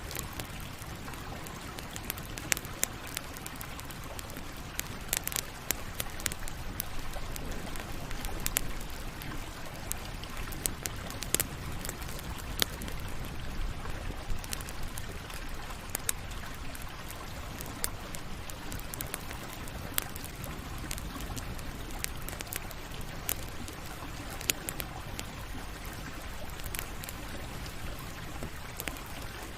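Wood campfire burning: a steady low rushing hiss with irregular sharp crackles and pops scattered throughout.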